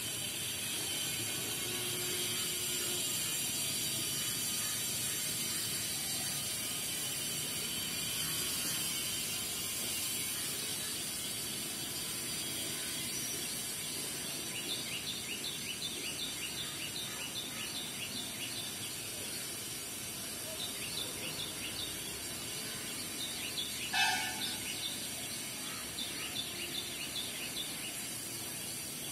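Outdoor ambience: a steady high hiss, with rapid chirping from about halfway, several chirps a second, and a brief louder call near the end.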